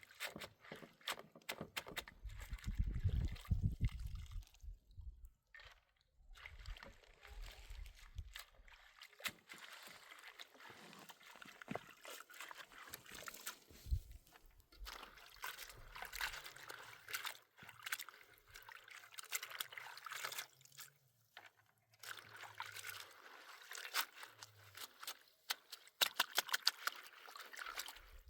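Liquid sloshing, trickling and being poured, with many small clicks and knocks of hands handling it.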